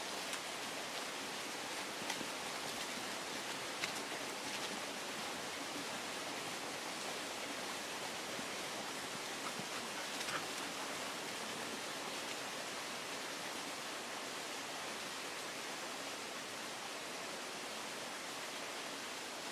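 Steady, even outdoor hiss with a few faint rustles, footsteps on a grassy path through a maize field.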